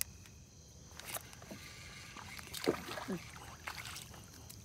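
Water splashing around the boat as a small bluegill is reeled in and lifted from the surface, with several light knocks.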